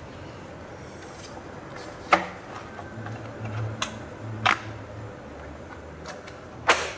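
Sheets of paper being handled and turned over, heard as several short, sharp rustles. The loudest come about two seconds in, around four and a half seconds and near the end.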